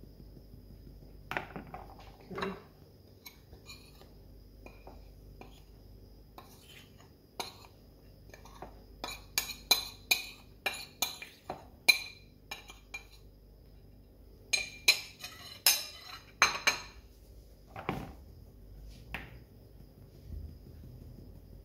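A metal spoon clinking and scraping against a bowl and the rim of a mesh sieve as flour is spooned into the sieve, in two runs of sharp clinks in the middle. A few softer knocks of the sieve being shaken and tapped come near the start and end.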